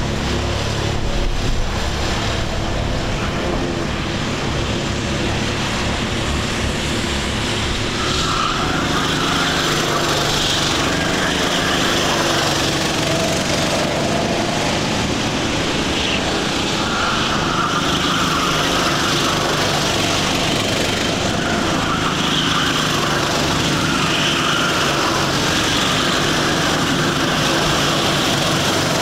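Several small racing kart engines running on track, a steady drone whose pitch rises and falls again and again as karts accelerate out of corners and pass by.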